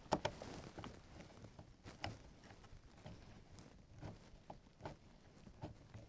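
Scattered light clicks and knocks from the parts of an RV keypad door lock being handled and fitted against the door. The sharpest knock comes right at the start and another about two seconds in; the rest are small, irregular taps.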